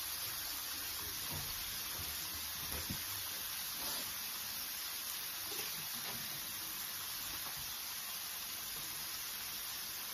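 A whole chicken shallow-frying in a pan of hot oil: a steady sizzle of bubbling oil with faint crackles, the pre-cooked bird's skin being crisped.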